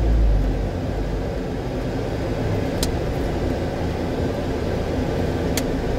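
Steady engine and road noise of a vehicle being driven, heard from inside the cab, with a heavier low rumble in the first second. Two short clicks come about three seconds apart.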